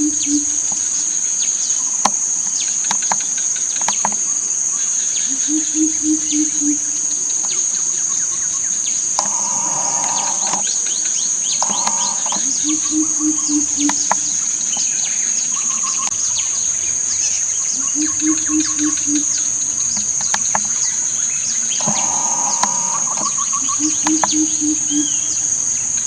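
Greater coucal calling: runs of five or six low, evenly spaced hoots, repeated four times about six seconds apart. A steady, high-pitched insect drone runs underneath.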